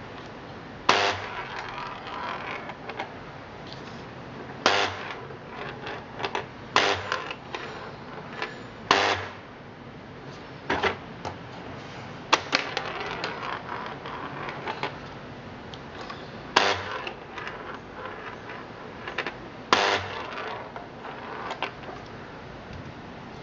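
Vintage mechanical tabletop football game in play: about nine sharp clacks at irregular intervals as the side levers fire the player figures, each followed by a short rattle of the small ball running over the ridged pitch.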